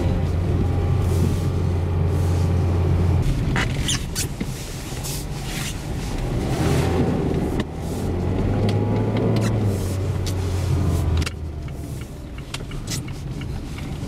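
Mazda car heard from inside the cabin, its engine droning under load while Dębica Frigo HP2 winter tyres rumble and crackle over packed snow. The engine drone eases off about three seconds in, picks up again around the middle and eases off again near the end.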